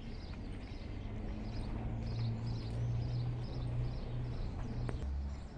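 A bird calling over and over in short, evenly spaced chirps, about three a second, over a steady low hum.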